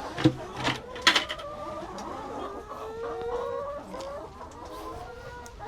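A flock of chickens clucking, many overlapping calls at once, with two sharp knocks in the first second and a half.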